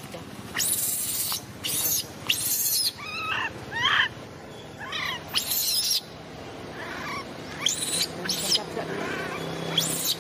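Baby macaque screaming and squealing in distress: repeated harsh screams with shorter wavering squeals between them. It has a hook caught in its mouth.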